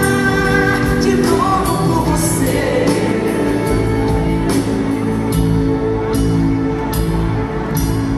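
Live band music with singing: held sung notes over a bass line and regular drum hits.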